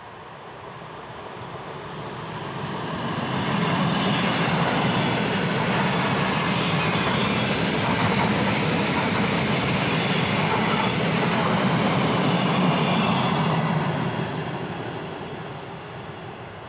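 Eight-car ED9M electric multiple unit passing at speed. Its rumble and wheel noise swell over the first few seconds, stay loud and even for about ten seconds as the cars go by, then fade as the train moves away.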